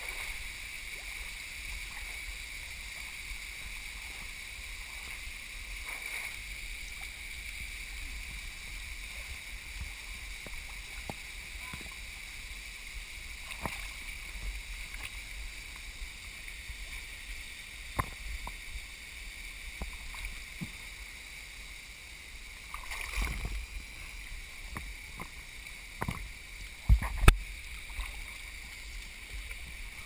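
Small waterfall pouring steadily into a rock pool, a constant splashing hiss heard from right at the water's surface, with scattered drips and clicks. A few dull thumps come near the end, the loudest about three seconds before it ends.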